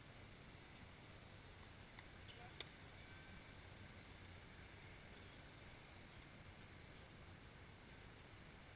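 Near silence: faint outdoor ambience with one sharp click about two and a half seconds in, a smaller one just before it, and faint rapid high ticking.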